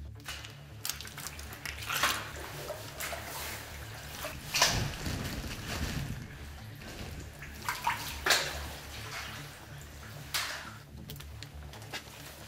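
People crawling on hands and knees in rubber boots over a wet, gravelly mine floor: irregular scuffs, crunches and splashes, the loudest about four and a half seconds in.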